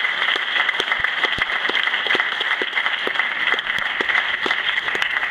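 Audience applauding, a dense steady patter with individual sharp claps standing out close by.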